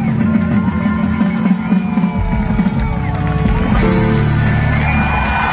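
Live pop-rock band playing loudly: electric bass, electric guitar and drum kit under held, sung notes, with crowd noise rising about four seconds in.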